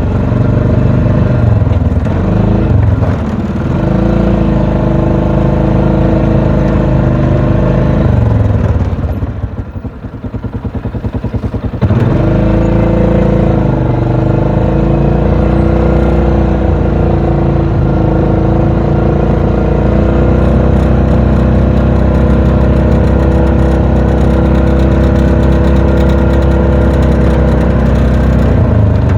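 ATV engine running under throttle while being ridden. About a third of the way in it eases off to a slow, pulsing idle for a few seconds, then picks up again sharply and runs steadily to the end.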